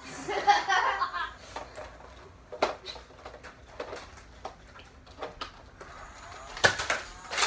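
A voice calling out briefly at the start, then scattered light clicks and knocks in a small room, with a quick cluster of them near the end.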